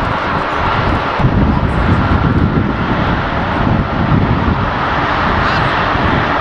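Jet engines of a four-engine Airbus A340 running steadily at taxi power as it rolls and turns.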